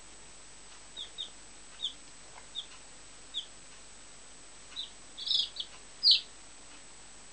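A baby chicken (chick) peeping: short, high, falling peeps about a second apart, coming closer together and louder near the end.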